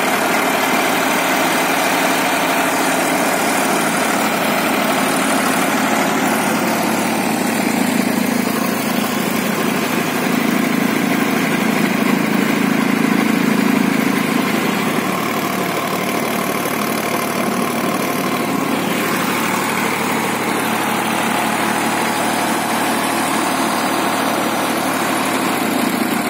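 Sonalika DI-35 tractor's diesel engine running steadily at idle, a little louder for a few seconds midway.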